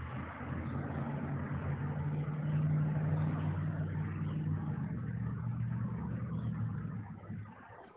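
Low, steady engine hum that swells to its loudest about three seconds in and dies away shortly before the end.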